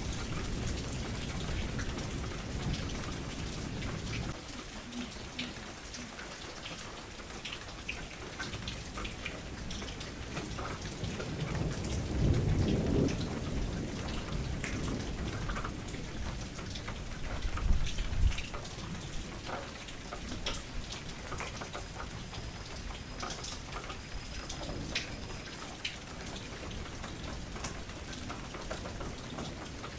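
Steady rain falling, with scattered drop ticks, and rolls of low thunder at the start, about twelve seconds in and again about eighteen seconds in.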